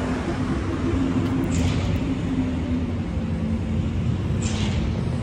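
Road traffic close by: a vehicle engine running with a steady low rumble and hum, with two short hissing swishes, about a second and a half in and again near the end.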